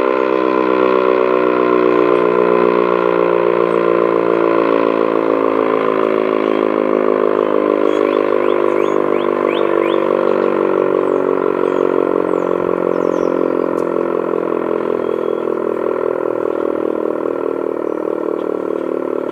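ACA Banshee 115 three-phase electromechanical siren sounding its noon blast. Its steady wail falls slowly in pitch and fades as the siren winds down.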